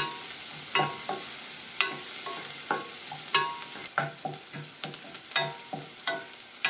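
Chopped red onion sizzling in melted butter in a stainless steel saucepan, sautéing toward golden. A spoon stirs it, scraping and clicking against the pan about once or twice a second.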